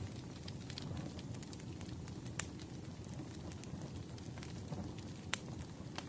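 Firewood burning: a steady low rumble with scattered sharp crackles and pops. The loudest pops come about two and a half seconds in and just after five seconds.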